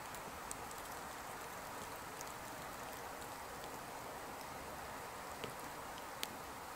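Sticks burning in the fuel chamber of an EcoZoom wood-burning stove: a steady soft hiss of the fire with a few sharp crackles, the loudest about six seconds in.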